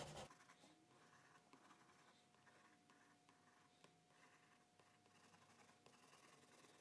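Faint scratching and light tapping of a graphite pencil dotting spots onto drawing paper, with a faint steady hum.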